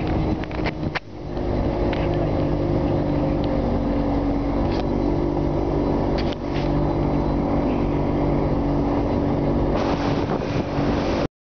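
Outboard motor of a motorboat running steadily at speed, with wind and rushing water over it; the hiss grows louder near the end.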